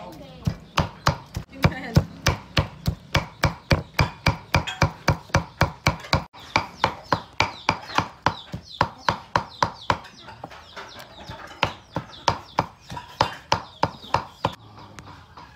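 Meat cleaver chopping pork on a wooden chopping block: steady, evenly spaced strokes about three a second, with a short break about ten seconds in, stopping about a second before the end.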